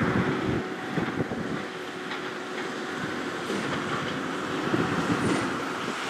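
New Holland T7.245 tractor's six-cylinder diesel running steadily as it pulls a Massey Ferguson 2290 large square baler, with the baler's mechanism clattering and knocking unevenly.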